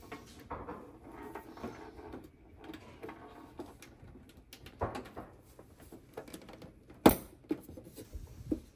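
Ethernet patch cords being handled and plugged into a small network switch: cable rustling with scattered clicks and knocks, the loudest a sharp knock about seven seconds in.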